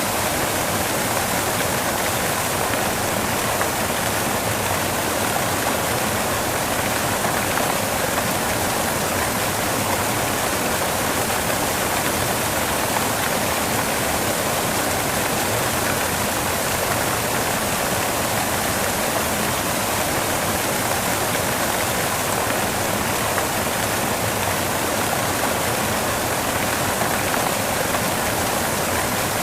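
Steady white noise: an even, unbroken hiss spread across the whole range, with no change in level or pitch.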